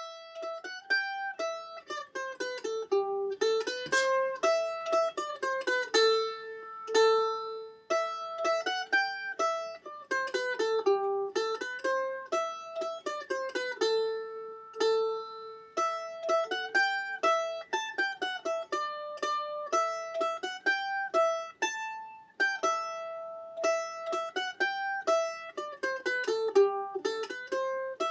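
Soundtrack music: a plucked string instrument playing a quick melody of short picked notes, starting suddenly out of silence.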